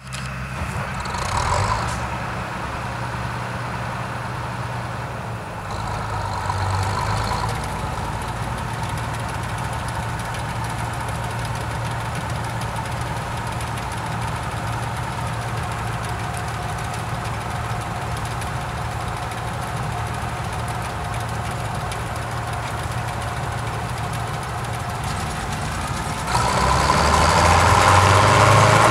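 Bizon Z056 combine harvester's six-cylinder diesel engine idling steadily. Near the end it picks up in speed and loudness as it is throttled up, sending out dark exhaust smoke.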